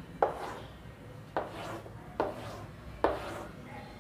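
Chalk on a chalkboard: four strokes about a second apart as vertical lines are ruled, each a sharp tap as the chalk meets the board, then a short scrape that fades as the line is drawn down.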